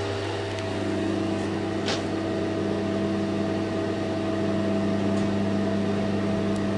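Steady hum of an old Express hydraulic lift car descending smoothly, with a few faint ticks along the way.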